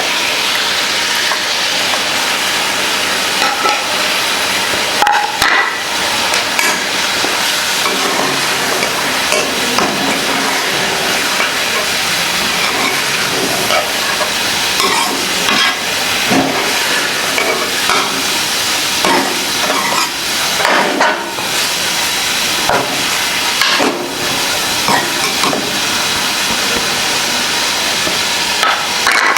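Chicken and freshly added tomatoes frying in hot oil in a cooking pot, sizzling steadily while a spoon stirs and scrapes the pot, with scattered sharp clanks.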